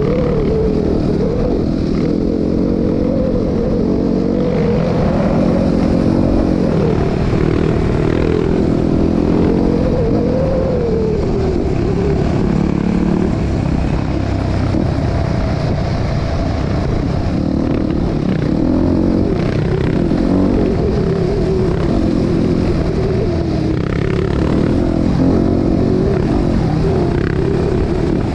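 ATV engine running while riding a trail, its pitch rising and falling as the throttle is opened and eased off.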